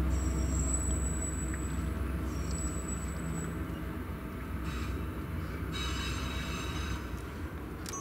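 Freight train cars rolling past with a steady low rumble of wheels on rail. A thin, high wheel squeal is held through the first few seconds, and several more squeal tones come near the end.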